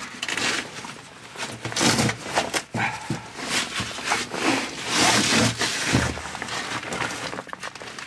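Boots scraping and knocking on the steel ladder rungs and concrete of a narrow bunker shaft as a man climbs down, with clothing rustling. The scuffs and knocks come irregularly, several at a time, with no steady rhythm.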